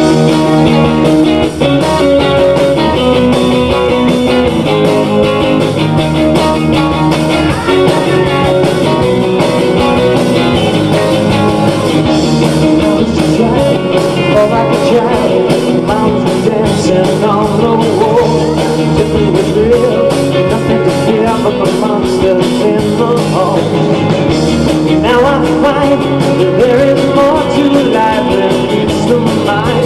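Rock band playing live on electric guitars and a drum kit, the full band coming in loudly at the start and playing on steadily.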